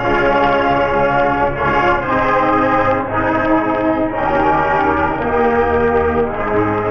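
High school band playing the school's alma mater in slow, held brass chords that change every second or two, heard from a 1965 45 rpm record.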